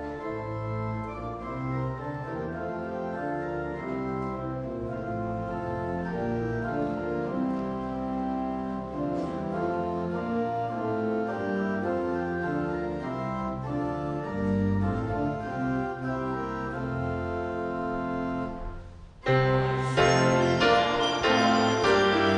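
Church organ playing a hymn introduction in sustained chords that move from note to note. Just after the three-quarter mark it breaks briefly and comes back louder and fuller as the hymn proper begins.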